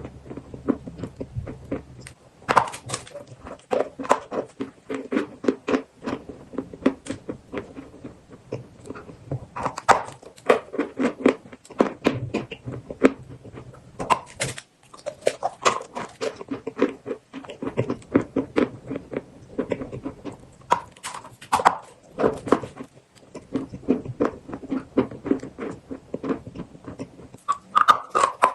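Chalk mixed with paste being bitten and chewed, close up: a dense run of irregular crunches and crackles, with a couple of brief pauses.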